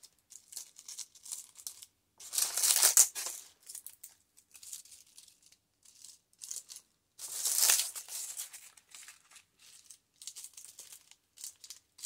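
Dry autumn leaves crackling and crinkling under fingers as they are pressed onto a paper page, with two longer bursts of crunching about two and seven seconds in between scattered small crackles.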